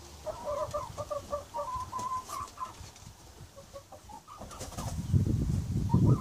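Domestic hens clucking in a run of short notes as they settle onto their roosting perch for the night. A low rustling noise builds about four and a half seconds in and is the loudest sound near the end.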